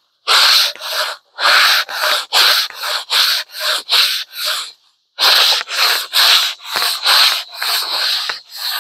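Hand sanding a window box with a sponge sanding block: quick back-and-forth rubbing strokes, about two a second, with a short pause about five seconds in.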